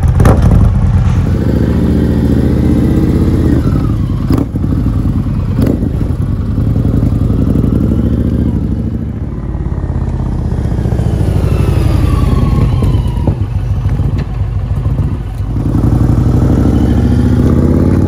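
Indian Challenger V-twin bagger running through a Freedom Performance Union 2-into-1 exhaust with a 4.5-inch slash-cut tip, ridden on a short loop. The loud exhaust note rises and falls with the throttle. It fades as the bike gets farther off and is louder again near the end as it passes close by.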